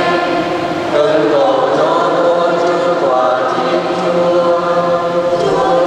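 Church choir singing a slow liturgical chant with long held notes.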